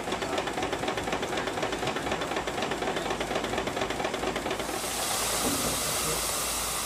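Small steam barring engine on a large triple-expansion pumping engine running with a fast, even chuff. About two-thirds of the way in, a loud steam hiss swells up and covers it.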